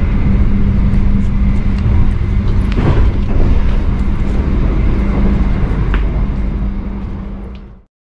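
Interior noise of a running passenger train carriage: a steady rumble with a constant low hum, fading out quickly near the end.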